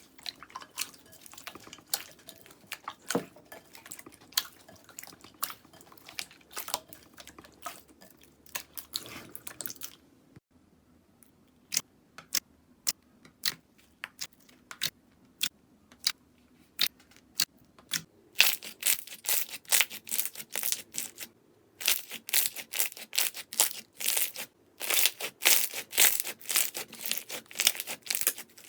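Slime being pressed and worked by hand, giving crisp crackling and popping clicks. It comes in dense runs, breaks off briefly about ten seconds in, goes on as sparser single pops, then turns into fast crackling again.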